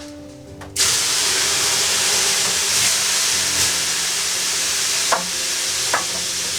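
Water thrown onto the hot stones of a wood-burning sauna stove (löyly), hissing into steam: a sudden loud hiss starts about a second in and carries on steadily, with two small pops near the end.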